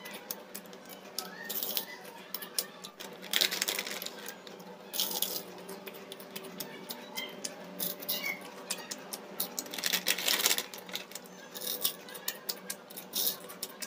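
Crinkling of a plastic-foil snack packet handled in short bursts, with scattered small clicks and crunches from chocolate corn puffs being eaten.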